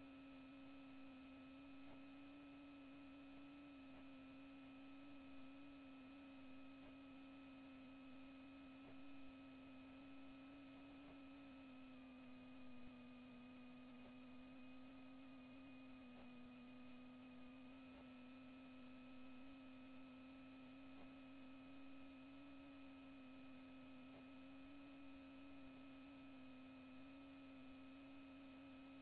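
Near silence with a faint, steady electrical hum: one low tone with fainter overtones, its pitch wavering slightly.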